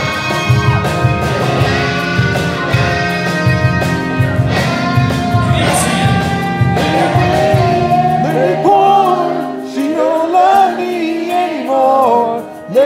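Live acoustic country band, with acoustic guitars, keyboard and a steady beat under a male lead vocal. About eight seconds in, the beat and bass drop out, leaving the singing over lighter accompaniment.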